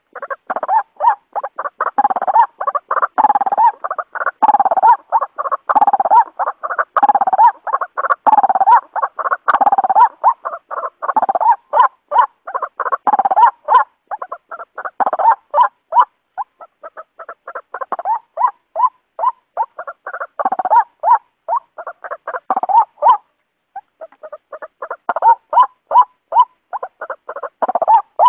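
Waterhen calling: a long run of harsh, repeated croaking notes, about three a second. The notes thin out in the middle and stop briefly about two-thirds through before starting again.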